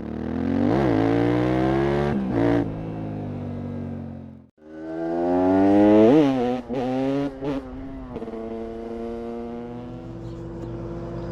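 KTM 690 SMC R's single-cylinder LC4 engine through a full Leovince exhaust, revving hard, its note climbing and dropping sharply several times. There is a sudden cut about four and a half seconds in, and the note settles steadier near the end.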